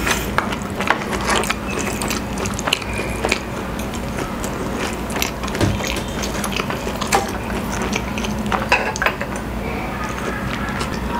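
Close-miked eating and drinking sounds: a wooden spoon set down on a wooden plate, then chewing, swallowing and sips of a drink, heard as many small irregular clicks over a low steady hum.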